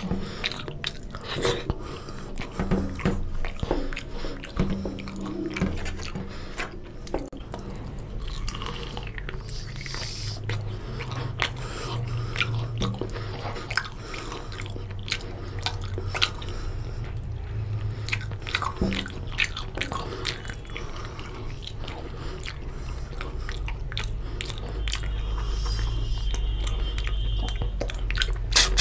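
Close-miked chewing and biting of oily mutton curry with rice, a steady run of small wet clicks from mouth and teeth, over a low steady hum.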